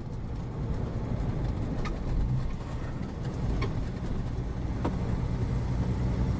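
Steady engine and road rumble heard inside a car cabin while driving slowly, with a few faint clicks.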